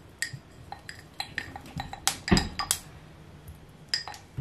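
Glassware clinking and knocking as it is handled: an irregular run of sharp clinks with a short ring, the loudest coming close together about two seconds in.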